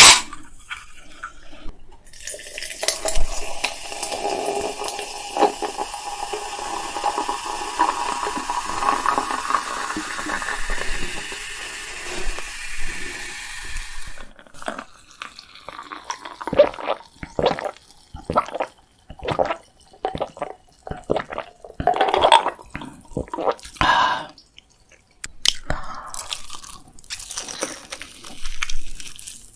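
Close-miked mukbang eating: a long stretch of wet, sticky chewing of sauced rice cakes, then, from about halfway, a run of short, sharp crunching bites and chews.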